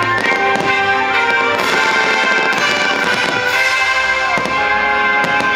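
Fireworks show soundtrack music over loudspeakers, with fireworks bursting overhead in several sharp pops and bangs.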